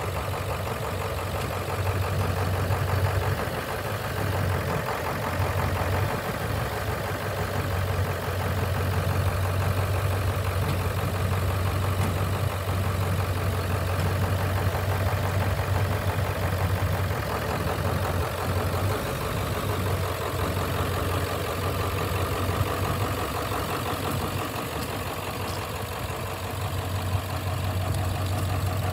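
1996 Ford 4x4 sprayer truck's engine idling steadily, with an even low hum.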